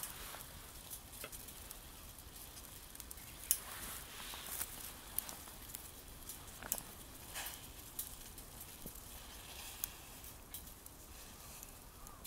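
Twig fire in a Firebox camp stove crackling, with irregular sharp pops over a soft sizzle; the loudest pop comes about three and a half seconds in.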